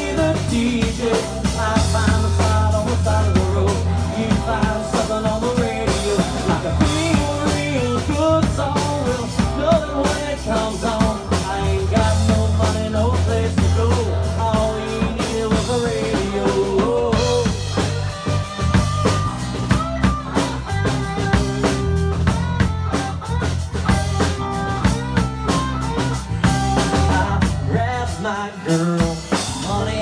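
Country band playing live: a man singing over electric guitar, acoustic guitar and a steady drum-kit beat.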